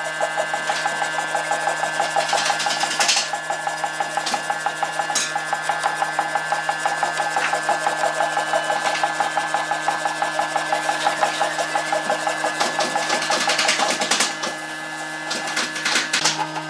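Abrasive scraping on wood, like a rasp or sandpaper worked steadily against a board, with a steady hum underneath.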